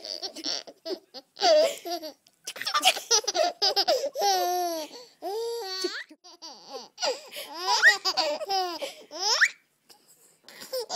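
A baby laughing in repeated bursts of high-pitched giggles and squeals, some sliding up in pitch, falling quiet near the end.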